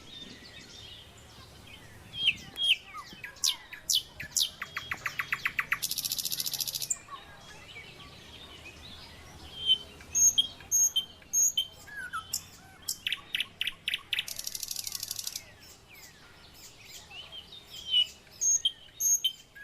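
Several birds chirping and calling, with many short sharp sweeping notes and rapid trills. Twice, a harsh high buzz lasts about a second.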